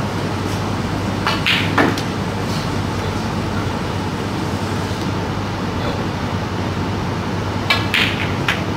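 Snooker shot near the end: the cue tip strikes the cue ball, then the sharp click of the cue ball hitting the black, with a further knock as the black runs to the corner pocket. A couple of similar sharp clicks come earlier, about a second and a half in, over a steady room hum.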